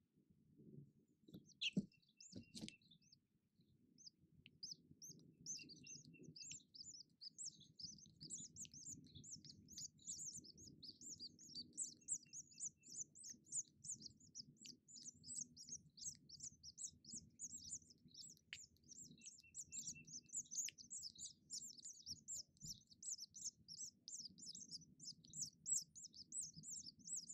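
House finch nestlings begging: a faint, rapid, continuous high-pitched chirping that grows dense about five seconds in as the male feeds them. A couple of soft knocks come about two seconds in.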